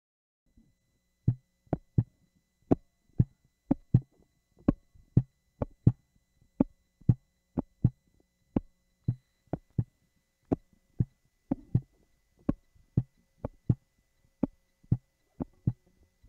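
Electric bass guitar played fingerstyle with the strings muted: short, dead percussive notes about two a second, with an occasional quick extra note, in a steady groove.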